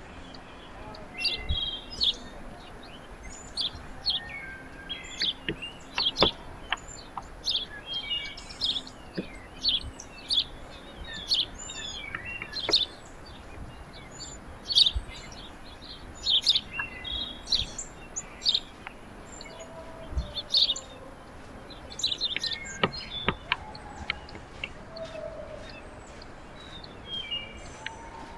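Small songbirds chirping and calling at a backyard feeder: many short, high chirps throughout, with a few sharp clicks among them.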